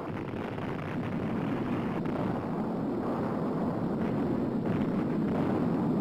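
Dynamite blast in the canyon's rock wall: a continuous heavy rumble of the explosion and of shattered rock and debris pouring down the cliff, swelling slightly toward the end.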